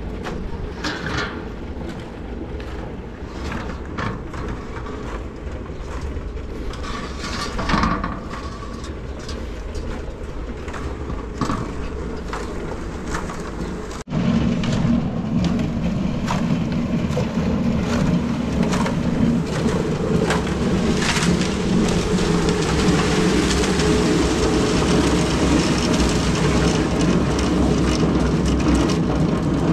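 Small portable concrete mixer running, its drum turning and churning wet concrete as it is tipped to pour into a wheelbarrow; this steady machine noise fills the second half. Before it, a quieter steady hum with scattered knocks.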